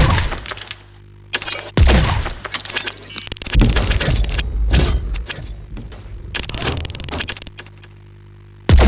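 Layered sci-fi action sound effects: a string of heavy impacts with deep booms and falling whooshes, with metallic rattling between them. The sound drops almost away near the end before another hard hit.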